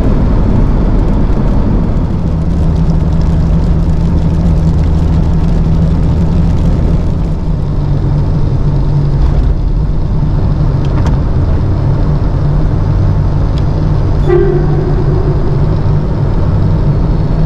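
Jeep driving on the road, a steady loud rumble of engine and tyre noise heard inside the cabin.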